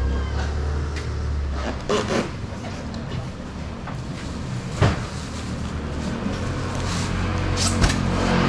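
A vehicle engine idling with a low rumble that fades after about two seconds and comes back near the end, over a few sharp knocks and thuds as styrofoam boxes are unloaded from a truck and stacked.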